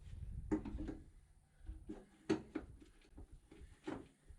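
Light, irregular hammer taps on the VW T3's front sheet metal, about eight in all, each with a short metallic ring, as the panel is adjusted to fit.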